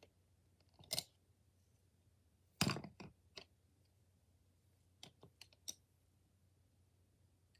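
Pencils clicking and clacking as they are handled and set down while a pencil box is sorted: a click about a second in, a louder cluster of clacks around the middle, and a few light clicks later on.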